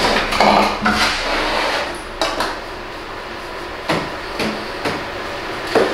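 A clear plastic tub being handled on a plywood board: several sharp knocks and clatters, with softer rustling and scraping between them as hands work inside the tub.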